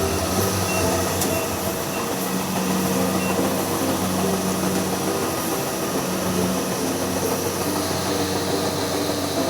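Rice harvesting machine running steadily: a loud, continuous engine drone with the rumble of the machinery.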